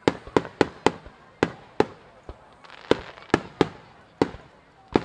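Aerial firework shells of a star mine barrage bursting in quick, irregular succession: about a dozen sharp bangs, some coming close together in pairs, each with a short echoing tail.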